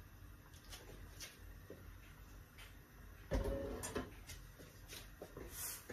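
Light knocks and scrapes of a wooden spoon stirring in a frying pan of cream sauce, with a heavier thump and short metallic ring about three seconds in as the pan is set down on the gas hob's grate.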